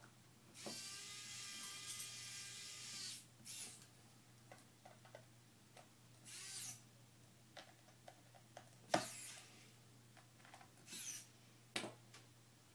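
A hissing whir lasting about two and a half seconds, then scattered small clicks, taps and rustles of iPad parts being handled during reassembly, with one sharper click near the middle.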